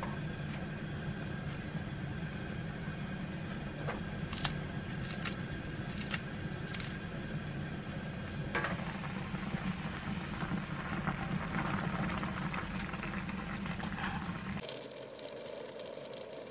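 Pot of doenjang broth with noodles boiling on a gas stove: a steady low rumble with bubbling and crackling that grows stronger about eight seconds in. A few sharp clicks come around four to seven seconds in, and the low rumble drops away shortly before the end.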